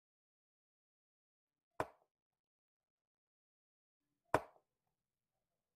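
Chess pieces set down on a wooden chessboard during quick play: two sharp knocks about two and a half seconds apart.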